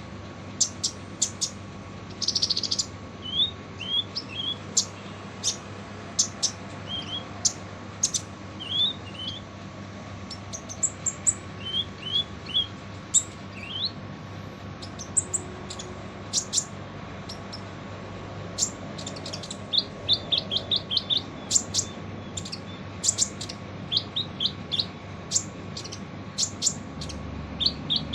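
Kolibri ninja sunbird singing its harsh, rough song: sharp, very high chips and short upward-flicked notes, breaking into quick runs of chips in the second half. A faint steady hum lies underneath.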